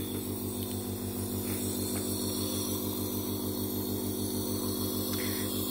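Nebulizer air compressor running with a steady hum and a fast, even pulsing, feeding a face mask near the end of a treatment with the medicine cup almost empty.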